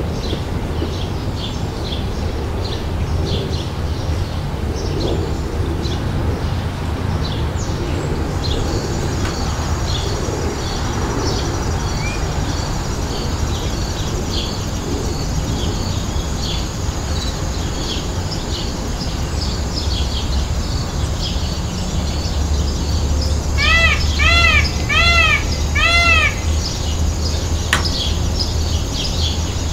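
Peafowl calling four times in quick succession about two-thirds of the way through. Each loud call rises and falls in pitch. Underneath run steady high chirping of small birds, a thin high steady drone from about a quarter of the way in, and a low rumble.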